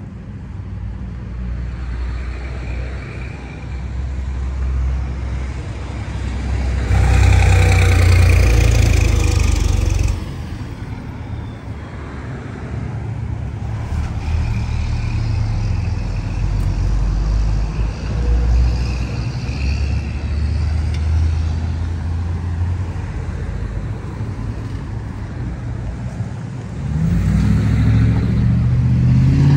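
Road traffic passing along a town street, a steady low rumble with one loud vehicle pass about seven to ten seconds in. Near the end a vehicle engine close by grows louder and holds a steady hum.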